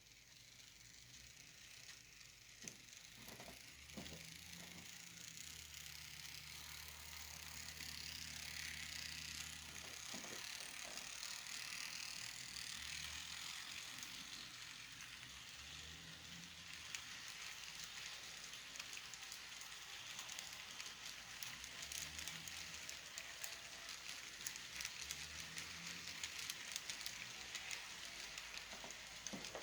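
Bachmann Spectrum N scale Dash 8 model locomotives running on track: a faint steady rattle of wheels on rails with small ticks over the rail joints, and a low motor hum that comes and goes.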